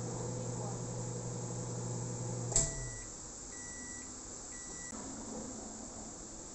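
Midea microwave oven running with a steady hum until its timer reaches zero about two and a half seconds in, when it shuts off with a click. It then beeps three times, about a second apart, to signal the end of the cooking cycle.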